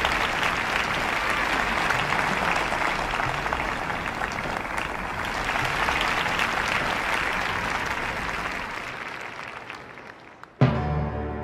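Concert audience applauding, the clapping slowly dying away. Near the end, music strikes up suddenly with a loud chord.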